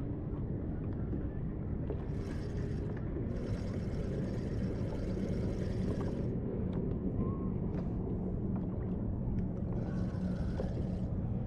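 Open-water ambience from a kayak: a steady low rumble with a faint hum. Stretches of soft hiss come about two seconds in, from about three to six seconds, and again near the end.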